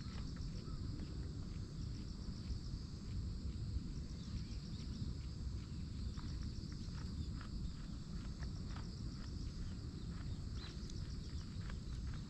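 Tokara goats chewing their cud: irregular clicks and grinding of the teeth as they ruminate, over a low steady rumble.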